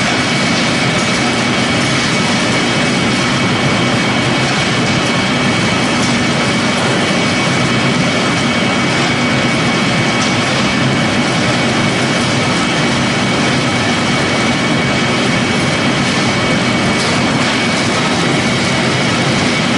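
Pellet-making machinery running steadily: a loud, even mechanical noise with a constant high whine over it, as the mill and conveyor turn out green grass or alfalfa pellets.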